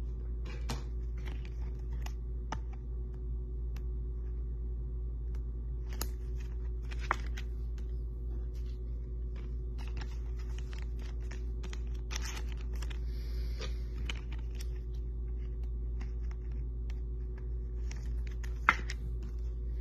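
Faint clicks and rustles of glossy football trading cards being flipped and slid against one another, with one sharper click near the end, over a steady low hum.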